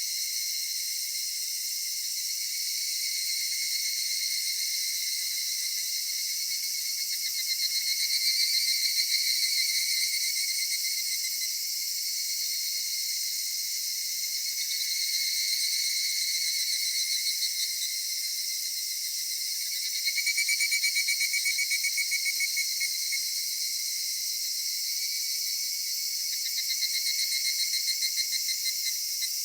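Cicadas calling in chorus: a steady high-pitched drone, with louder rapidly pulsing calls swelling in and fading every five to seven seconds.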